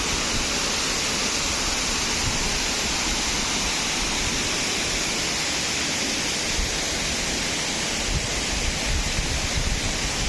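Waterfall crashing steadily into a pool: a loud, even rush of falling water, with a few low gusts of wind on the microphone in the last few seconds.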